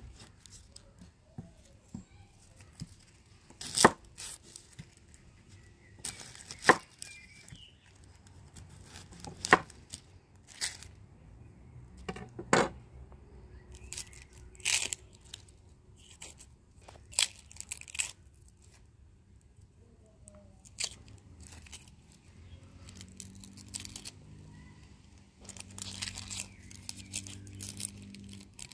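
Sharp tearing and crinkling snaps, one every two or three seconds, with quiet in between.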